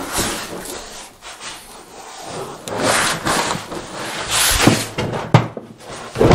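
A large rolled sheet of formica laminate being unrolled and handled: rustling and scraping as the stiff sheet flexes and slides, with a few sharp knocks in the second half as it flops against the bench.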